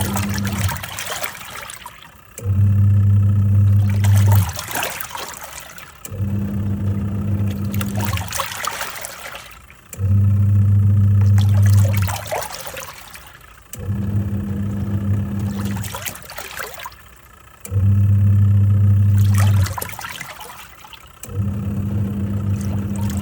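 Twin-tub washing machine in its wash cycle: the motor hums in runs of about two seconds, stopping and starting again every four seconds or so as the pulsator turns one way and then the other, with water sloshing in the pauses.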